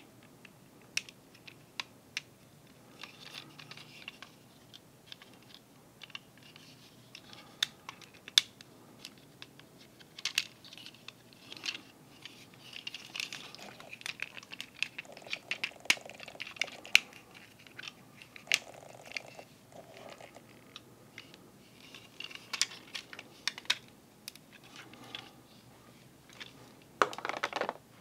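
Small plastic clicks and snaps of an MP-54 Reboost Transformers figure's joints and panels being moved by hand as it is transformed, with light handling rustle. Near the end a louder crinkling rustle of the glossy instruction sheet.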